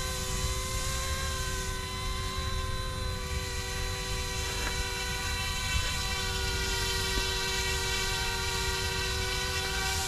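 YU XIANG F06 EC135 electric RC scale helicopter in flight: a steady whine from its motor and rotors, the pitch drifting slightly, over a low rumble.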